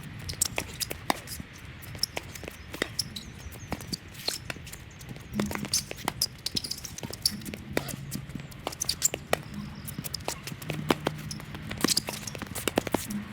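Tennis play: sharp knocks of the ball on strings and court, with many quicker clicks of footsteps and shoes on the court, over a low intermittent hum.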